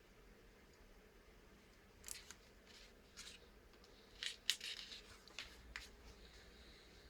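A scattered series of light clicks and short scrapes from small hard parts being handled, with a tight cluster about four and a half seconds in.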